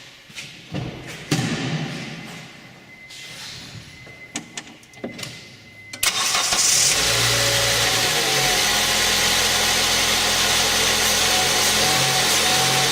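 A few clicks and a thump, then about halfway through the Acura RSX's 2.0-litre four-cylinder engine starts abruptly and settles into a steady idle, running so the alternator's charging voltage can be measured.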